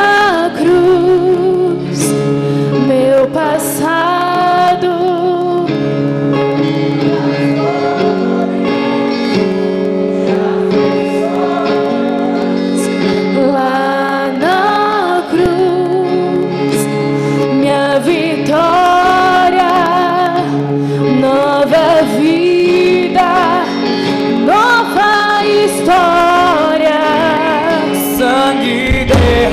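Live Christian worship song: a young woman sings the lead into a handheld microphone over held keyboard chords from the band.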